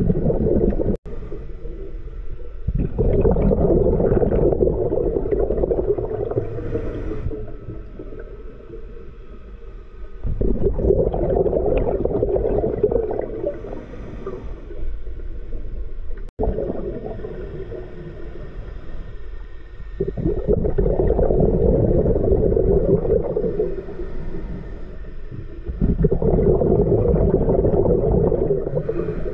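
Scuba diver breathing through a regulator underwater: four long rushes of exhaled bubbles, each lasting a few seconds, with quieter stretches between them.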